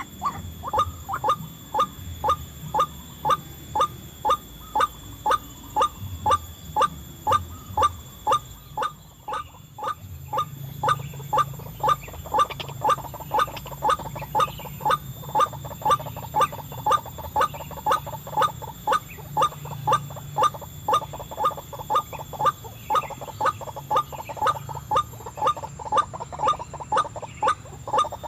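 White-breasted waterhen calls: one short, clipped note repeated very evenly, about two a second, throughout, typical of the lure call used to draw ruak-ruak to a trap.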